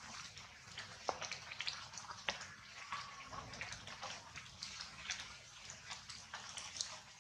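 Water dripping: scattered, irregular drops and light ticks, a few a second, over a faint steady hiss.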